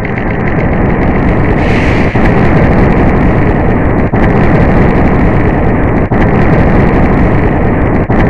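Volcano-eruption sound effect from the Quiver augmented-reality colouring app on an iPad: a loud, steady rumble with a hiss over it. It swells over the first second and grows brighter about two seconds in.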